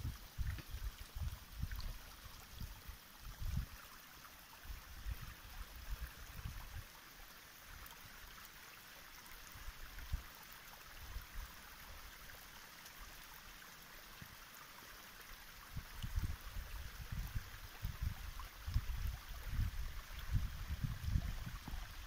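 Small stream trickling and babbling, a steady gentle rush of water. Irregular low bumps on the microphone come in the first few seconds and again through the last several seconds.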